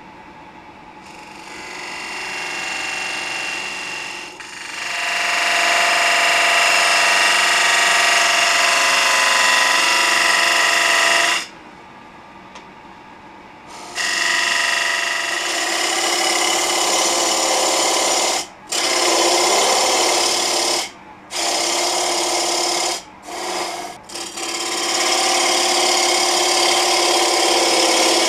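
A gouge cutting a spinning Russian olive bowl on a lathe: a loud, steady hissing cut with a few steady tones in it. The cut breaks off for about two seconds near the middle and briefly several more times as the tool lifts away, leaving only the lathe's quiet running.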